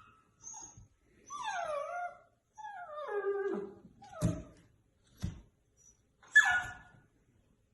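A dog whining in two drawn-out calls that fall in pitch, then three short sharp yips.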